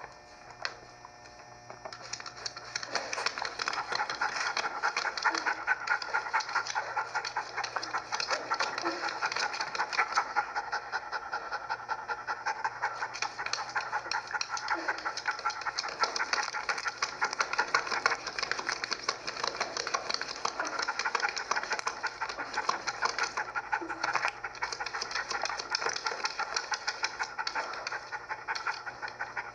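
A dog panting rapidly right at the microphone, starting about two seconds in and going on without a break.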